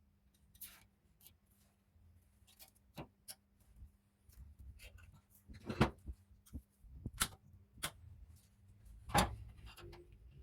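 Irregular clicks and knocks of parts being handled and set down, with louder knocks about six, seven and nine seconds in, over a faint steady hum.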